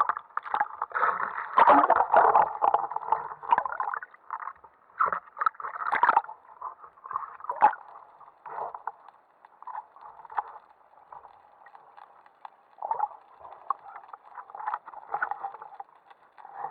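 Muffled underwater sound picked up through an action-camera housing: irregular bubbling and gurgling with scattered knocks and clicks. It is busiest in the first few seconds and quieter after that.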